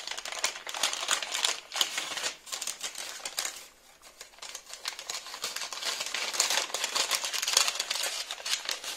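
Brown kraft paper bag crinkling and rustling as it is unfolded and opened by hand, with a short lull about four seconds in.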